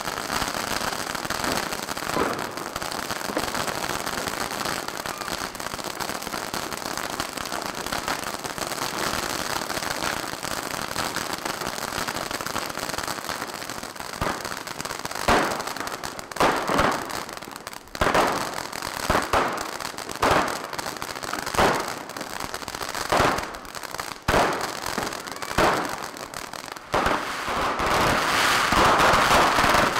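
Ground fireworks fountains burning on pavement, giving a dense fizzing crackle of sparks. From about halfway a string of sharp bangs follows, roughly one a second. Near the end a louder steady hiss comes in as a tall spark fountain burns.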